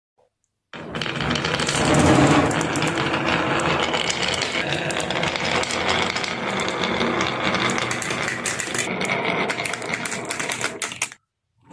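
Marbles rolling and clattering down a wooden marble run: a dense, continuous rattle of clicks that starts about a second in and stops abruptly near the end.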